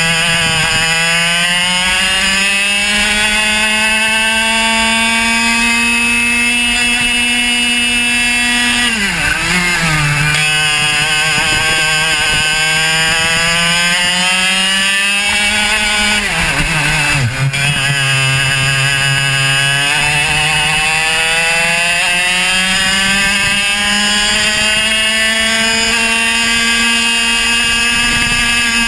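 Two-stroke racing kart engine at full throttle, its note climbing steadily along the straights. The note drops sharply twice, about nine and seventeen seconds in, as the kart slows for corners, and then climbs again.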